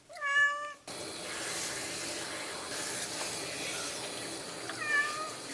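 A handheld bath sprayer running steadily, water spraying onto a wet British Longhair cat's coat, starting about a second in. The cat meows once briefly at the start, the loudest sound, and once more near the end.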